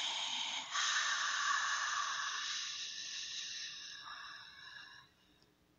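A person's long, slow breath out, an airy hiss with no voice in it, pushed harder about a second in and fading away by about five seconds in: the exhale after a held breath in a guided breathing exercise.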